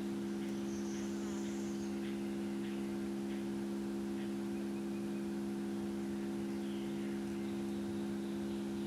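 Tone generator playing a steady 68 Hz tone, heard as a continuous, unchanging low hum with its overtones.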